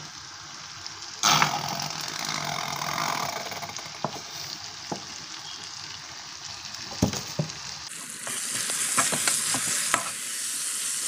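Vegetables and sauce sizzling in a frying pan while a spatula stirs and scrapes through them, with a few sharp knocks of the spatula against the pan. The sizzle gets brighter and louder about eight seconds in.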